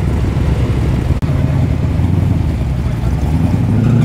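Car engines running with a deep, steady rumble, broken by a sudden gap about a second in; after the gap a single car's engine note swells a little near the end as it drives in.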